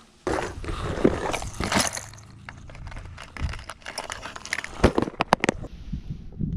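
Plastic tackle tray being rummaged: lures and hooks clatter against the plastic, with several sharp clicks about five seconds in.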